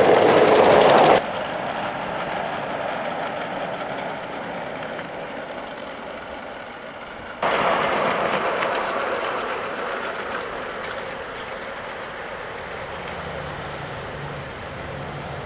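Gauge 1 Accucraft M6 gas-fired live steam locomotive and its freight wagons running on the track, steam exhaust and wheels on the rails. Loud close by at first, it drops sharply about a second in, comes back loud about seven seconds in, then fades as the train pulls away.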